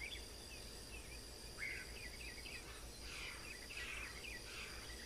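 Faint outdoor ambience: small birds chirping on and off over a steady high-pitched insect trill.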